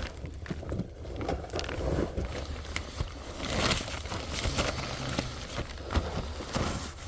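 Irregular rustling, scraping and small knocks of a person crawling through a crawlspace, over a steady low rumble.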